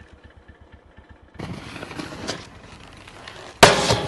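Snowboard sliding and scraping over snow with wind rumbling on the microphone, louder from about a second and a half in, then one sudden loud thump near the end.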